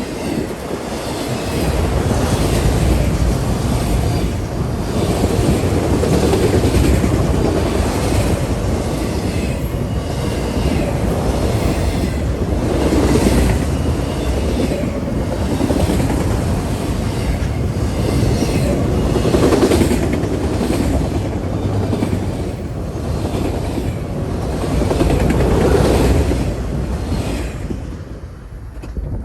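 A train passing close by: a steady rumble with repeated clicks of the wheels over the rails, dying away near the end.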